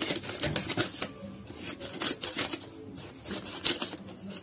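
Paper rustling and crinkling as it is handled and pressed around a plastic water can, in a run of short, irregular scratchy bursts.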